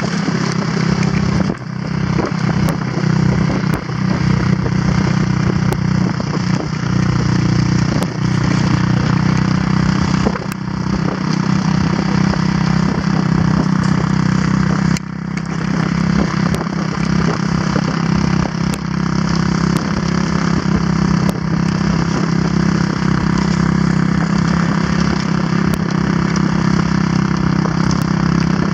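A quad bike's engine runs steadily as it tows a line of sleds over snow. Under it is a continuous hiss from the sleds sliding on the snow, with scattered small clicks.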